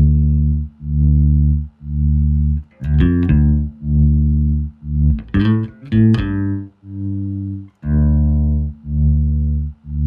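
Electric bass played through a Boss TR-2 Tremolo pedal, rate at its slowest and depth at maximum: held low notes swell and fade about once a second, dropping almost to silence between pulses. A few new notes are plucked partway through.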